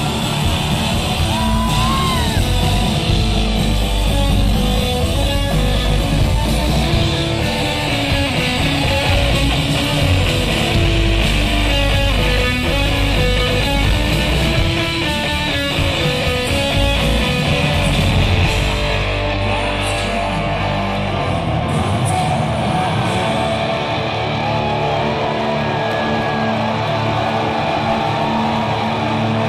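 Live rock band playing loud, with electric guitars, bass and drums, heard from the audience. About two-thirds of the way through the deepest bass and kick drum drop out and the sound thins to the guitars and upper parts.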